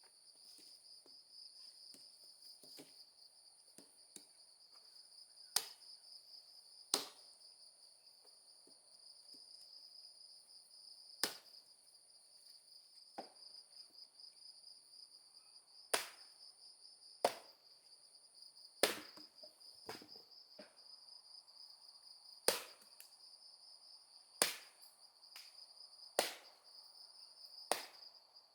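A steady, high-pitched insect chorus drones throughout, broken by about ten sharp knocks at irregular intervals of one to three seconds.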